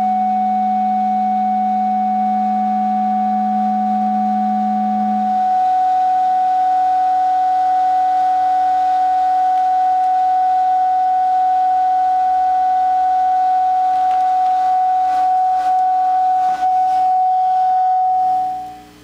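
Sustained electric-guitar feedback through amplifiers, heard as steady pure tones: a low tone drops out about five seconds in, while a higher tone holds and then fades out quickly just before the end. A few faint clicks come in the last few seconds.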